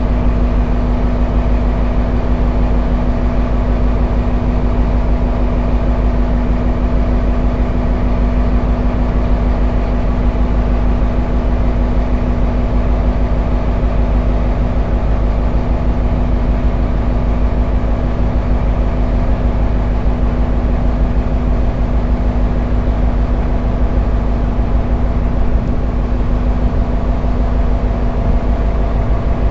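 A dhoni's inboard diesel engine running steadily under way: a constant low rumble with a steady hum that does not change in pitch or level.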